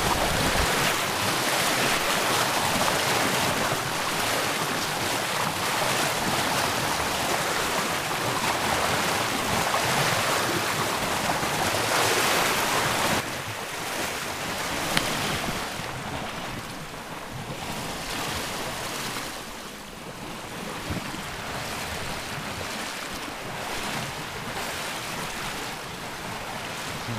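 Water rushing along the hull of a sailing yacht under way, mixed with wind on the microphone: a steady noise that drops to a clearly quieter level about halfway through.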